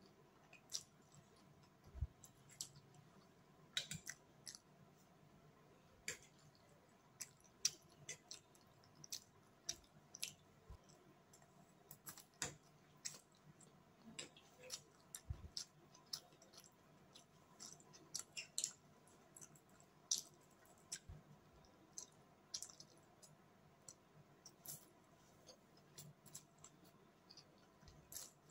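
Mouth sounds of eating chow mein noodles: quiet, irregular wet clicks and smacks of chewing and slurping, about one or two a second, with now and then a low thump.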